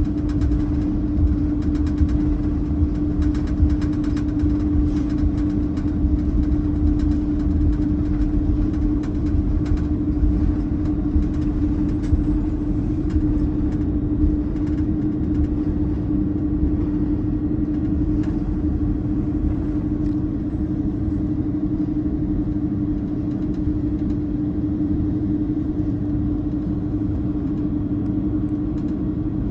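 Inside the cabin of an Airbus A330-203, its General Electric CF6-80E1 turbofans running at high power: a deep rumble under a steady hum at one pitch, with light rattles in the first half that ease off later.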